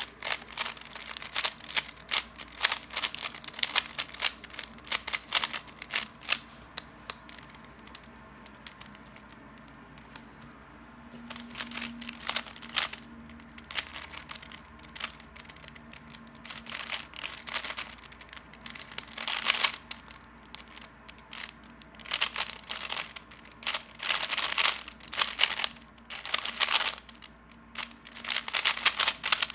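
3x3 speed cube being turned fast by hand: dense runs of plastic clicks and rattles from the layers. A quieter pause comes after about seven seconds, then the rapid turning resumes.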